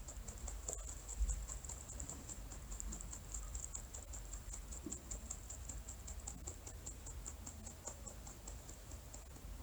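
Pet rabbit making a steady run of soft, rapid clicks, about five a second, over a low rumble.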